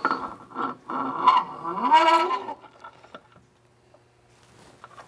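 A man's drawn-out wordless vocal sound for about two and a half seconds, its pitch rising near the end, then a few light metal clicks from the jackshaft and secondary clutch being fitted.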